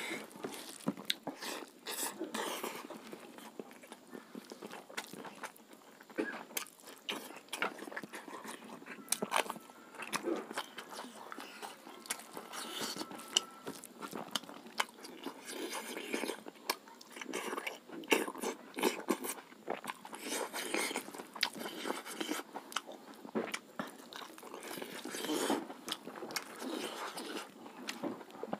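Close-up eating by hand: a man chewing and biting sukha roti with rice and pork, with many irregular sharp mouth clicks and smacks. His fingers tear the dry flatbread and work the rice on the plate.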